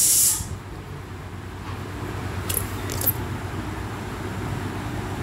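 Pastel crayon rubbing softly on paper over a low background rumble, with two faint clicks about halfway through. A loud steady hiss cuts off suddenly just after the start.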